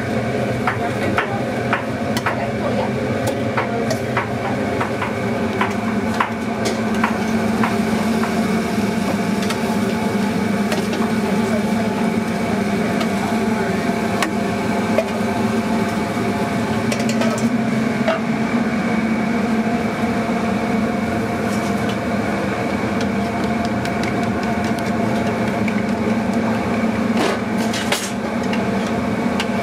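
Busy commercial kitchen: a steady machine hum under frequent clinks and clatter of stainless-steel colanders and hotel pans as fried chicken is tipped out, with a few sharper knocks near the end.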